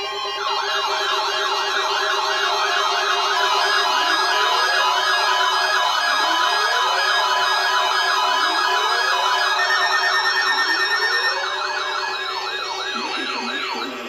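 Several weather alert radios sounding their electronic siren-like alert tones at once, set off by a Required Weekly Test: a fast warble overlaps a higher warble and slower rising sweeps. The loudest layer stops about eleven seconds in, while the others carry on a little longer.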